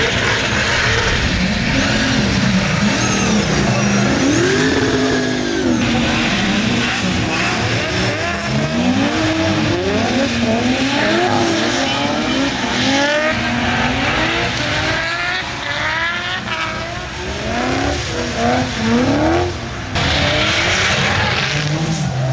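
Drift cars' engines revving, rising and falling in pitch again and again, with some tyre squeal.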